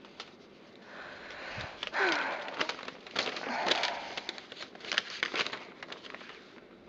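Paper being handled, rustling and crinkling, with many small clicks and taps: envelopes and their paper contents being sorted through by hand.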